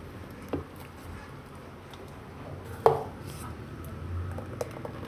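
A steel ladle working thin rava dosa batter in a steel pot: a couple of light clinks of ladle on metal, the clearest about three seconds in, with batter pouring back from the ladle.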